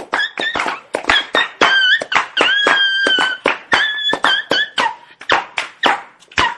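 A dog whining and yelping in quick, short high cries, chopped into a fast run, with a longer held whine lasting about a second a couple of seconds in.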